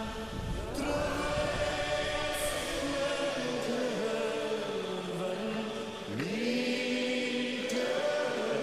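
Background music of choir-like chanting, long held notes that shift to new pitches every couple of seconds.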